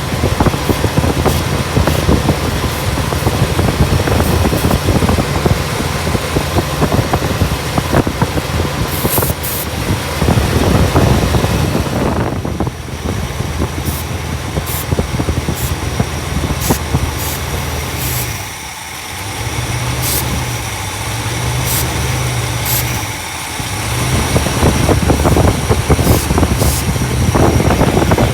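1964 Imperial Crown's 413 V8 idling with the air cleaner off. The idle is steady but dips twice in the second half, and there are scattered light clicks. It is a surging idle that is traced to a vacuum leak at the carburetor base gasket.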